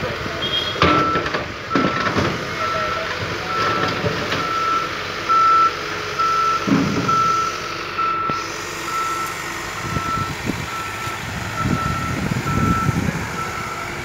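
A road roller's reversing alarm beeping steadily, a single high tone repeating a little faster than once a second, as the Case roller backs down off the truck's bed onto the gravel. Diesel engine noise rises and falls beneath the beeps, swelling about halfway through and again near the end.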